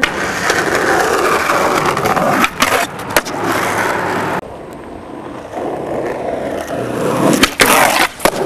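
Skateboard wheels rolling on concrete, broken by sharp cracks of the board twice a few seconds in. The sound cuts off abruptly partway through, then rolling starts again and ends in a cluster of loud cracks near the end.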